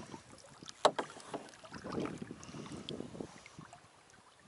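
Double-bladed kayak paddle working through lake water from a tandem kayak: quiet, irregular swishes and splashes of the blades, with a sharp knock about a second in.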